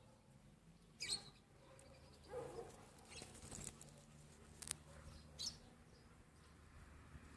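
A frog giving several short, faint, high squeaky calls spaced a second or so apart, one of them lower-pitched.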